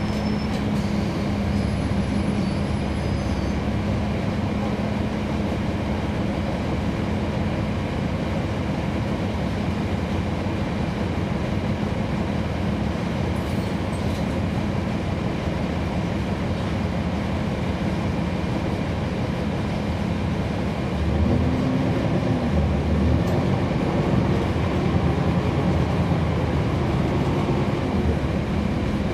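Cummins ISL9 inline-six diesel engine of a NABI 40-SFW transit bus, heard from on board, running with a steady drone as the bus moves. About two-thirds of the way through, the engine note rises and falls and grows slightly louder.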